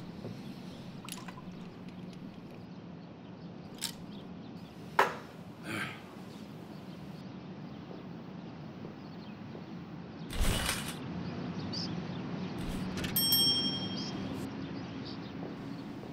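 Steady low hum with scattered small clicks and knocks of objects being handled at a bar counter, a louder thump about ten seconds in, and a short ringing ding about three seconds later.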